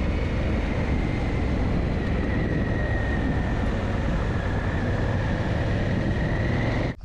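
Heavy wind noise rushing over the microphone as the Honda Africa Twin 1000 is ridden, with its parallel-twin engine running underneath and a faint steady high whine. It cuts off abruptly near the end.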